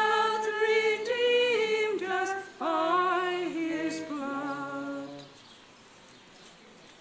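Unaccompanied singing of a hymn: a single melody line in long held notes, ending about five seconds in, just before the mass opens.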